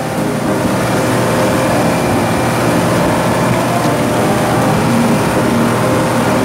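Motorised outrigger boat's engine running steadily at cruising speed.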